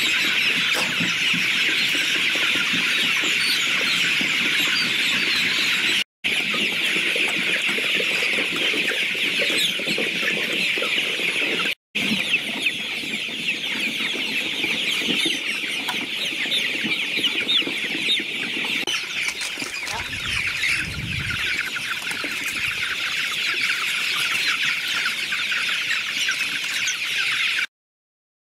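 A large flock of young chickens in a poultry house, peeping and cheeping all at once in a dense, continuous chorus, which stops abruptly near the end.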